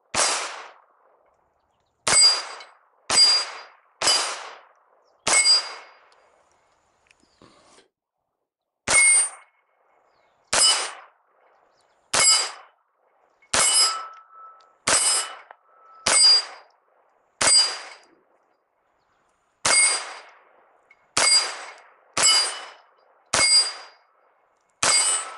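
Smith & Wesson Model 422 .22 LR pistol fired in a steady string of about seventeen shots, roughly one to one and a half seconds apart, with a pause of about three seconds after the fifth shot. Each shot carries a short metallic ring.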